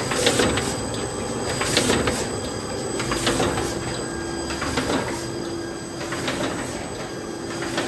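Kolbus PE 312 bookbinding machine running, a steady hum broken by a mechanical clatter that repeats about every second and a half as it cycles.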